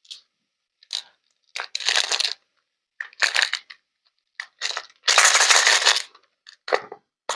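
A string of short, noisy handling sounds, about eight bursts with silent gaps between them. The longest and loudest lasts about a second, a little past the middle.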